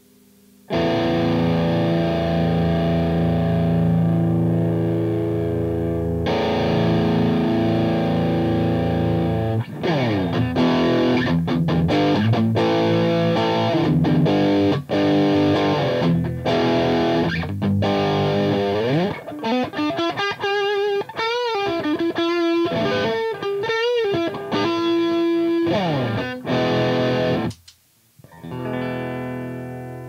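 Overdriven electric guitar: a Fender Stratocaster on its Lace Sensor Red bridge pickup, played through a Fender Hammertone Overdrive pedal into a Marshall JCM 800 amp. Two long chords ring for several seconds each, then come quicker picked phrases, then bent notes with vibrato. It stops near the end, and a softer chord follows.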